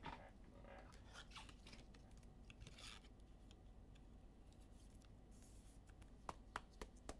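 Near silence with faint rustling and scratching of something being handled, then a few light, sharp clicks near the end.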